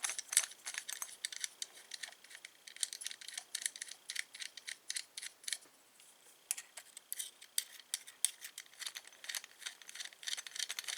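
Small metal clicks and scrapes of a screw being driven with a small Phillips screwdriver into a Schlage keyed knob, the driver tip rattling in the screw head; a short pause about six seconds in.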